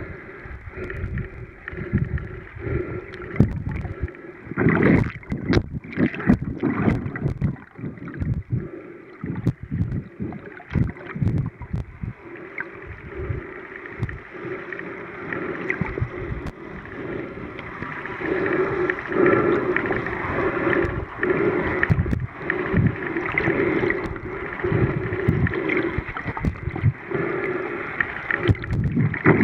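Muffled, irregular water noise picked up by a submerged camera: sloshing and gurgling in uneven surges, with scattered short knocks.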